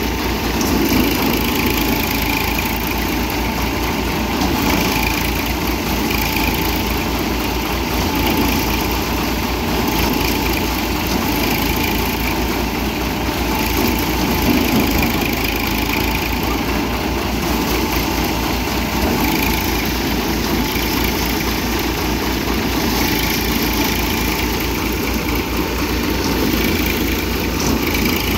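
Tractor-driven Dashmesh paddy thresher running steadily under load, its threshing drum beating through paddy bundles as they are fed in, over the Massey Ferguson tractor's engine powering it.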